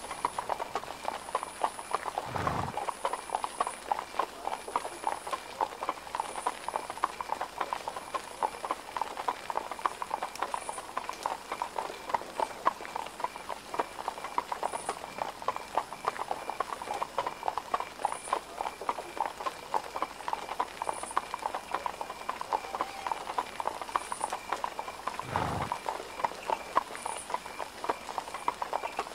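Steady clip-clop of hooves, many overlapping hoof-falls running on without a break, with a deep thud twice: once a few seconds in and once near the end.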